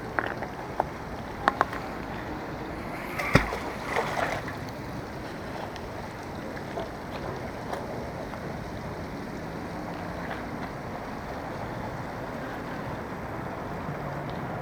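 Steady riverside background noise, with a few short clicks and knocks in the first few seconds; the loudest is a single sharp knock a little over three seconds in.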